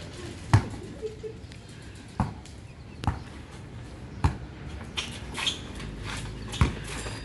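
Basketball bouncing on a hard court: five sharp, deep thumps at uneven intervals of about one to one and a half seconds, with lighter scuffs between them.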